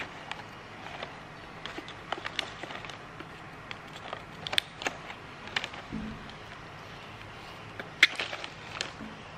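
Plastic snack packet crinkling and rustling in short, sharp crackles as a baby monkey and a person's hand handle it, the loudest crackle about eight seconds in.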